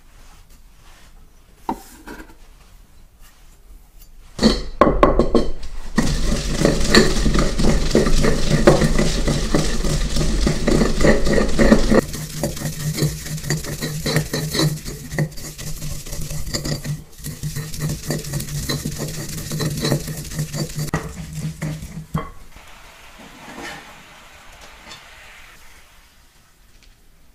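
Wooden pestle grinding chopped shiso leaves in a ridged ceramic suribachi mortar: a continuous rapid scraping rub that starts about four seconds in, eases off partway through and stops several seconds before the end. A few light clicks of the knife scraping the leaves into the bowl come before it.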